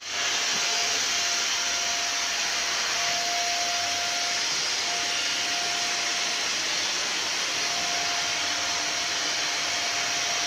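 Vacuum cleaner running steadily, a loud even rush of air, with a thin whistle that comes and goes several times.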